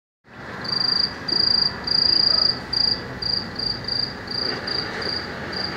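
A cricket chirping: a high, pulsed trill repeated about two to three times a second, the first chirps longer and the later ones shorter, over a steady background noise.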